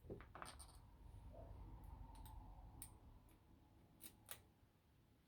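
Faint, scattered clicks of a key being tried in a Corbin lock, two close together about four seconds in. The key goes in but will not turn the lock.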